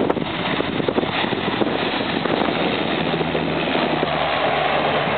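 Twin-engine Turbo Commander turboprop running as it rolls along the runway, a steady engine-and-propeller drone mixed with rushing noise. A steady low hum comes up about halfway through.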